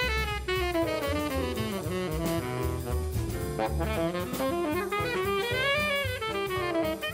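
Background jazz music with a horn melody over drums.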